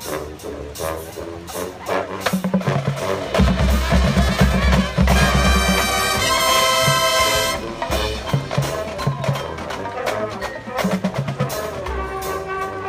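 Drum and bugle corps playing: a busy percussion passage of drums and mallet keyboards, with heavy bass drum hits from about three seconds in and the brass swelling into a loud held chord about five seconds in for a couple of seconds, then the percussion carrying on.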